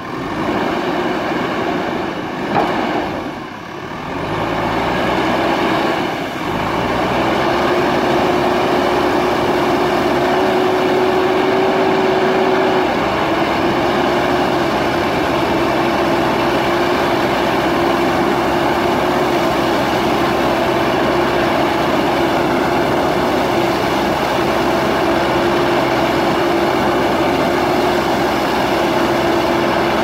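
JCB backhoe loader's diesel engine working under load as its front bucket pushes through river water, with water splashing. The engine picks up a few seconds in, and a steady whine runs through the rest.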